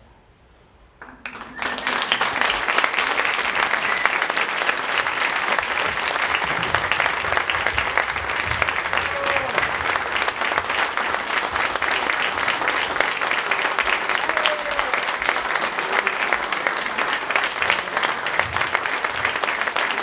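An audience starts applauding about a second and a half in, after a short hush, and keeps clapping steadily.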